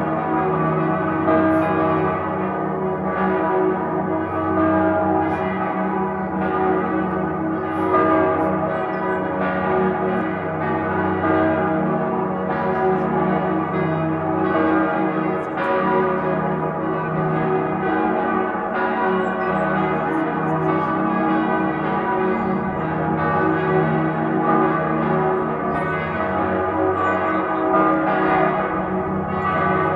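Salzburg Cathedral's bells ringing together in a full peal: several bells strike over one another at uneven intervals, their deep tones humming on continuously between strokes.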